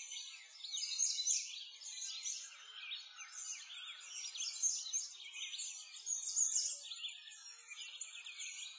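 A chorus of many small songbirds chirping and trilling, their quick calls overlapping continuously.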